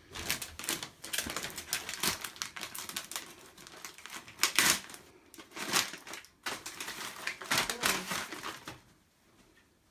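Shiny metallic Christmas wrapping paper being torn off a present and crinkled in the hands, a dense run of crackling rustles. It has louder rips about halfway and near the end and dies away about a second before the end.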